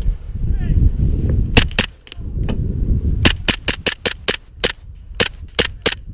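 Airsoft pistols firing: two quick shots about a second and a half in, then a rapid string of about a dozen sharp shots from about three seconds on, over low rumbling movement noise.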